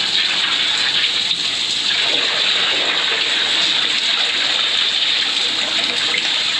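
High-pressure drain jetter spraying water: a steady, unbroken hiss and gush of the water jet.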